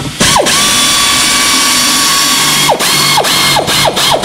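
Pneumatic air ratchet running a rear brake caliper carrier bolt in: one long steady burst of whine and air hiss for about two and a half seconds, then about six short blips as the bolt snugs tight, the motor's whine dropping in pitch each time the trigger is released.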